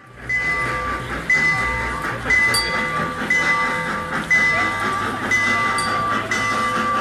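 Background music with a steady beat of about one note a second over a held chord, and a bass line that shifts pitch about halfway through.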